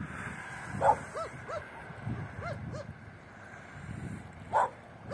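An animal calling twice: each time one loud, sharp call followed by a quick run of short yips, about four or five a second, that fade away.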